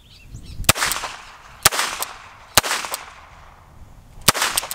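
Four shots from an Ekol Viper Major traumatic (less-lethal) revolver firing rubber-ball pistol cartridges, roughly a second apart with a longer pause before the last. Each loud crack is followed by a fainter second crack.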